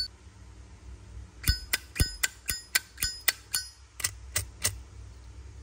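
Zippo lighter's hinged metal lid being snapped open and shut repeatedly: about a dozen sharp, ringing metal clicks at roughly four a second.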